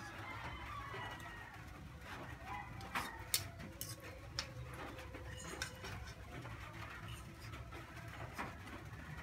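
Metal fork clinking and scraping against a bowl of noodles, with a few sharp clicks a few seconds in, over a steady low hum.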